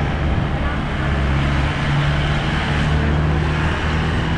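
City street traffic: motor vehicle engines running steadily as vehicles drive past, over general road noise.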